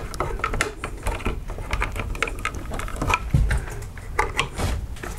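Irregular clicks and scrapes of solid electrical wires being handled: a wire nut twisted onto the spliced neutral wires, then the wires pushed into the back of a plastic switch box.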